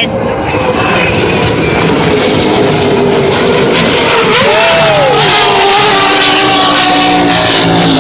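Offshore racing powerboat engines running at speed as the boats pass: a loud, steady drone of several engines, their pitches drifting, swelling over the first second and then holding.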